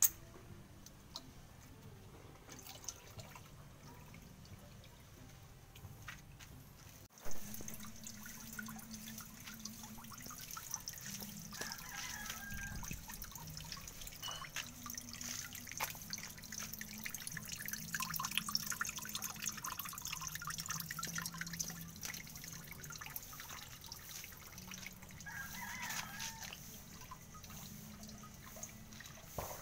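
Water trickling and dripping into a small cement pool: a steady hiss with many small drip ticks, louder after an abrupt change about seven seconds in.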